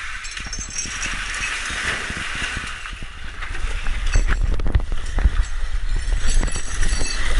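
Water rushing and splashing in a rock canyon pool as a canyoner slides down a chute into it. From about halfway through, a low rumble and a string of knocks on the microphone rise over the water sound.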